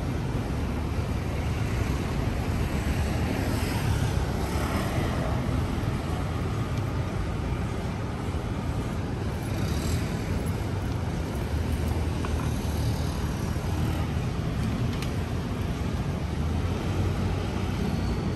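Steady city street ambience of road traffic running past, with a few passing vehicles swelling and fading.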